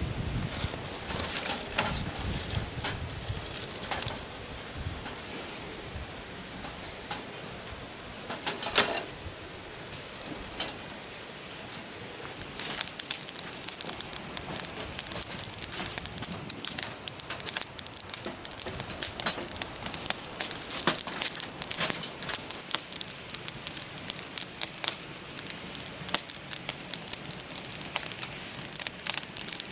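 Newly lit campfire of feather sticks and kindling crackling as it catches, with a few louder knocks in the first ten seconds or so; the crackling becomes dense and rapid from about twelve seconds in.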